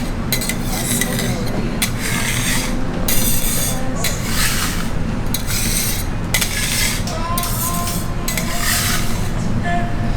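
Metal spatula scraping and working across a hot griddle in irregular strokes, over a steady low hum.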